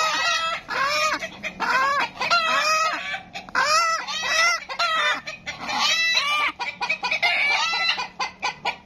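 Chickens screaming in alarm, set off by a hen being caught and held. Loud arched squawks come one after another, turning into quicker short cackles near the end.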